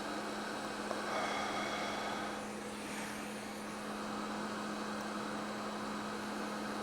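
Steady fan and airflow hiss from microsoldering bench equipment, with a constant low hum underneath and a faint tick about a second in.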